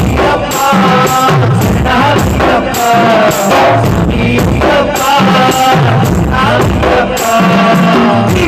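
Live devotional bhajan: a man singing into a microphone, amplified, over drums and percussion keeping a steady beat.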